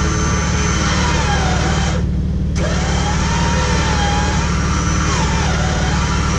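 Jeep Wrangler engine idling steadily, with a thin whine above it that slowly wavers up and down in pitch.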